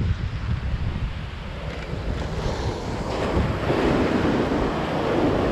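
Ocean surf washing onto the beach, with wind buffeting the microphone in a low, uneven rumble.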